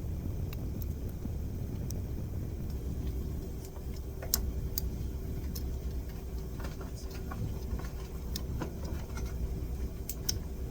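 Scattered light clicks and taps of small parts as a lithium-ion battery and a microprocessor are fitted onto a hand-soldered POV LED circuit board. They sound over a steady low background rumble.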